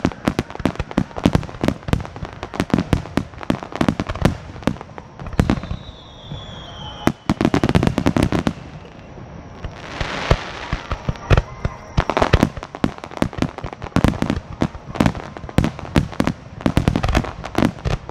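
Starmine fireworks barrage: shells bursting in rapid, overlapping bangs. A falling whistle comes about six seconds in, and a dense crackle about ten seconds in.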